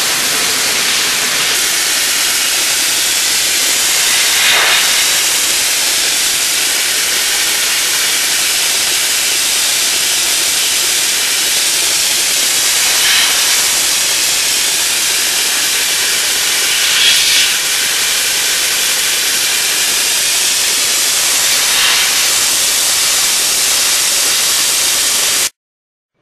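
Dry ice blaster nozzle jetting compressed air and dry ice pellets in a loud steady hiss as it strips chewing gum off a subway car's floor, with a few brief louder surges. It cuts off suddenly near the end.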